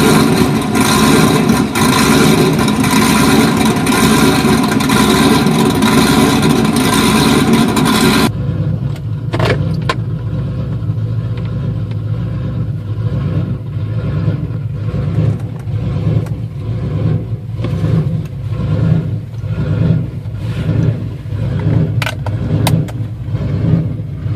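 Chevrolet Trailblazer SS's 6.0-litre LS2 V8 running on a 'rough idle' tune, which makes the stock engine idle choppily like one with a big cam. It is loud and full for about the first eight seconds, then drops abruptly to a lower, uneven idle whose level rises and falls in a loping rhythm.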